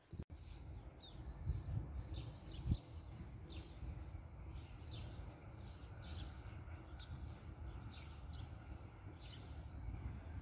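Small birds chirping in short, repeated calls over a steady low outdoor rumble.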